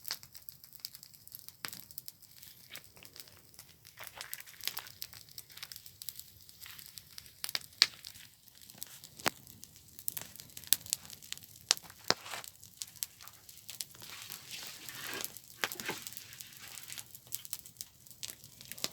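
Campfire burning and crackling, with irregular sharp pops and a short spell of hissing about two-thirds of the way through.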